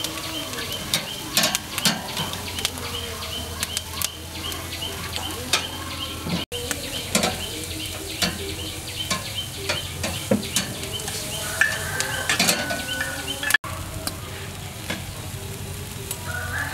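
Whole marinated quail sizzling on a charcoal grill's metal grate, with metal tongs clicking and scraping against the grate as the birds are turned.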